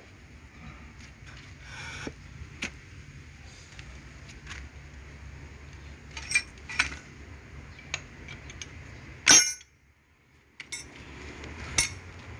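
Metal brake pedal valve parts and hand tools clinking and knocking as they are handled and set down, a scattering of short sharp clicks with the loudest knock a little past nine seconds. A steady low hum runs underneath.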